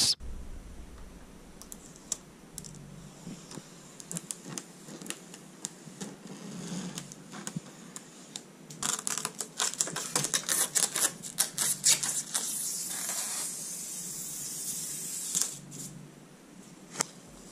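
Computer keyboard keys clicking in irregular runs, fastest and densest for a few seconds in the middle, followed by a few seconds of soft hiss.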